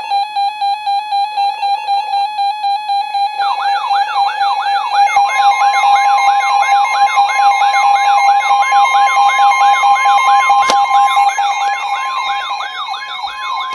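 Several weather alert radios sounding their alarms at once, signalling a newly issued severe thunderstorm warning. A steady beep pulses three to four times a second; about three and a half seconds in, a siren-like alarm joins it, warbling up and down about twice a second, and a long steady attention tone starts about five seconds in. A single sharp click comes near the end.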